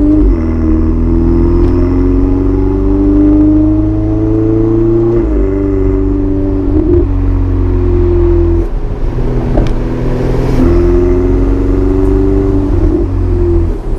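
Ferrari 488 Spider's twin-turbo 3.9-litre V8 accelerating hard through the gears: the engine note climbs in pitch and drops back at each quick upshift, with a short lift off the throttle about nine seconds in before it pulls again.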